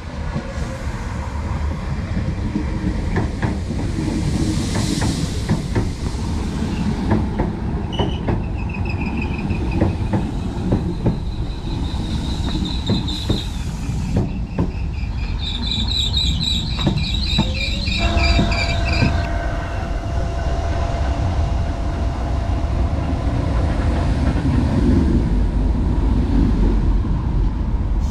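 DART electric commuter train running in along the platform: its wheels click over the rail joints, then the brakes squeal in high tones for several seconds as it slows. A steady hum follows under the low rumble of the train.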